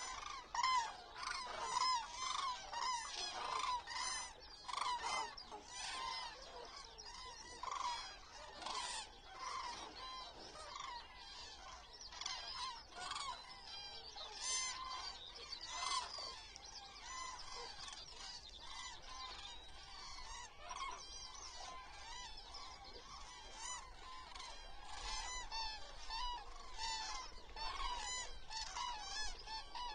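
A large flock of common cranes calling, many trumpeting calls overlapping, louder and more distinct in the first several seconds and settling into a softer, continuous chorus.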